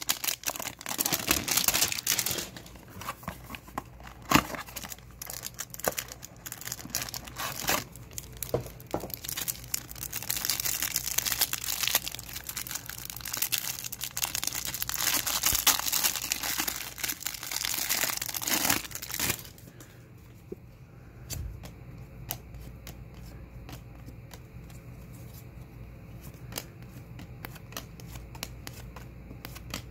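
A trading-card hanger box torn open, then the plastic wrapper around the stack of cards crinkled and torn, loud and rustling for about the first twenty seconds. After that it is much quieter, with soft scattered clicks of cards being flipped through.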